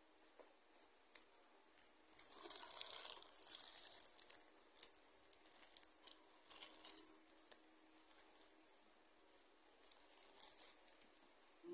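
Paper burger wrapper crinkling and tearing as it is handled and unwrapped, in a long burst about two seconds in and shorter rustles later on.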